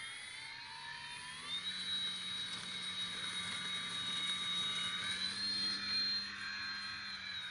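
Electric motor and propeller of a large foam RC plane whining under throttle. The pitch rises over the first second and a half as it spools up, then holds steady, with a small step up about five seconds in.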